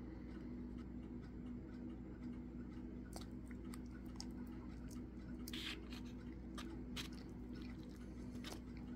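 Metal fork moving through wet instant ramen noodles in a foam Cup Noodles cup, with soft squishes and a scatter of small clicks and scrapes from about three seconds in, the loudest scrape a little past the middle. A steady low hum runs underneath.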